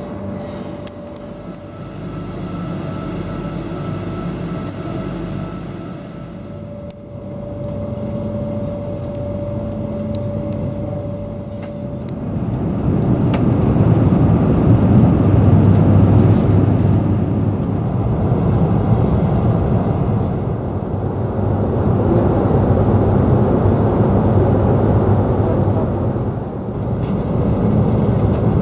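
Inside a Turkish YHT high-speed train carriage: a steady hum with a faint whine, then, about halfway through, a louder, even rumble and rush of the train running at speed.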